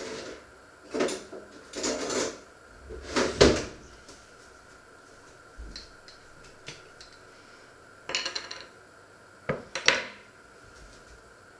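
Kitchen clatter: several short bursts of knocking and rattling as drawers, cupboards and crockery are handled, the loudest about three seconds in, then a small jar set down on a wooden cutting board about ten seconds in.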